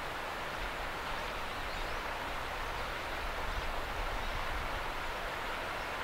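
Steady outdoor background noise: an even hiss with an uneven low rumble beneath it. No distinct bird call or other single event stands out.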